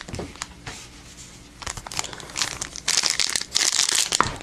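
Foil Yu-Gi-Oh booster pack wrapper crinkling as it is handled, with a few light clicks over the first second or so and dense crinkling from about a second and a half in.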